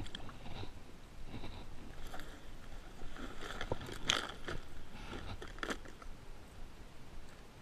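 Rustling, scrapes and scattered clicks of gear being handled: a fabric zippered bag and a clear plastic tackle box, with a sharper click about four seconds in.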